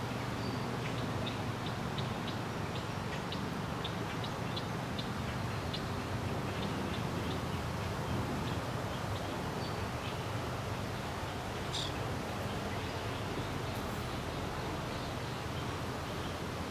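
Short, high bird chips repeated irregularly, two or three a second, for about ten seconds, with one brighter call about twelve seconds in, over a steady low outdoor rumble.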